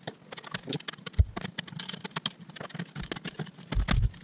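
Bark and dried mud being scrubbed and scraped by hand off a tree root held in a lathe, with a wire brush and a flat steel blade: irregular scratching and clicking, with a couple of dull knocks, the loudest near the end, over a low steady hum.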